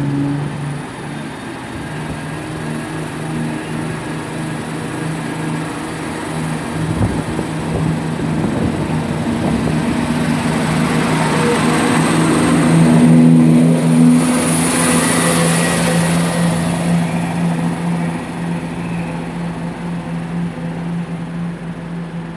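A Class 170 Turbostar diesel multiple unit pulling out of the station under power, its underfloor diesel engines giving a steady low drone. The sound builds to its loudest about 13 to 15 seconds in, with a high hiss over it, then slowly fades as the train draws away.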